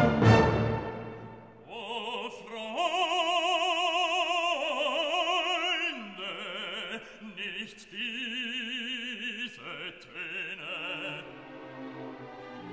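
Background music: a classical piece in which an operatic voice sings long held notes with a strong vibrato over an orchestra, after a loud chord dies away at the start.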